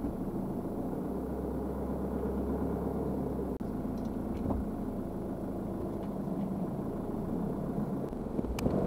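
Converted van's engine running steadily with road noise while on the move, with a brief break about three and a half seconds in.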